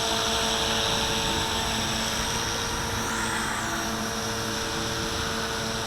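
Walkera V450D01 450-size electric collective-pitch RC helicopter in flight, its motor and rotor running with a steady whine.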